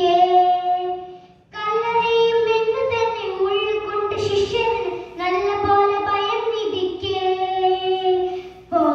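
A young girl singing solo into a microphone in long held notes, pausing briefly for breath about a second and a half in, about five seconds in and near the end.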